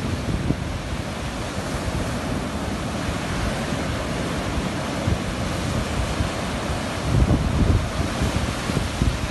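Ocean surf breaking and washing up the sand, a steady rushing with wind buffeting the microphone; the low rumble swells up about seven seconds in.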